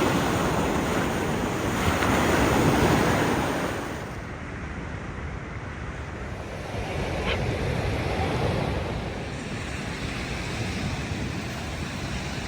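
Ocean surf breaking and washing up the beach, swelling and fading in loudness, with wind rumbling on the microphone.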